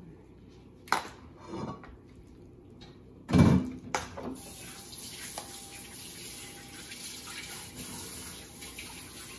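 A few light knocks and a loud clatter about three seconds in, then a kitchen tap starts running steadily into the sink.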